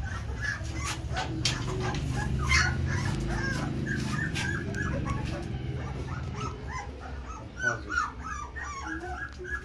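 Newborn Great Dane puppies whimpering and squeaking, many short high cries overlapping one another throughout, with a few sharp knocks in the first few seconds.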